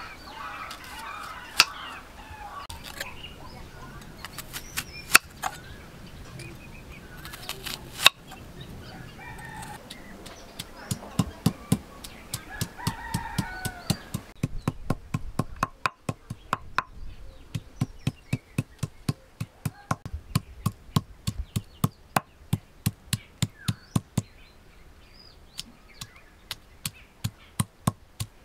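Sharp knocks of a knife and a stone roller on a stone grinding slab as red onion is cut and then crushed. Scattered strikes in the first part, then a steady run of about three knocks a second from about a third of the way in. Chickens cluck in the background, near the start and again a little before the middle.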